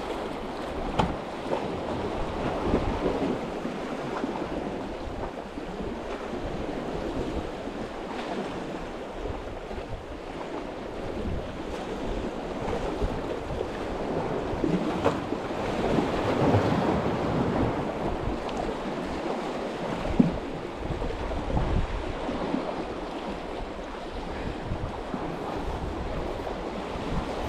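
Sea waves washing against the shore with wind buffeting the microphone, the wash swelling and easing in slow surges. One sharp click a little past the middle.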